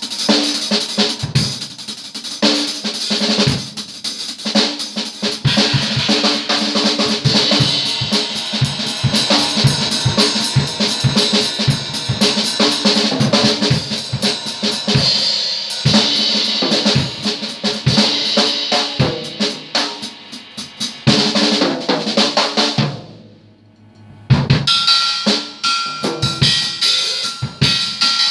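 Acoustic drum kit played freely: bass drum, snare and tom strikes under a continuous wash of ringing cymbals. The playing breaks off for about a second, about 23 seconds in, then starts again.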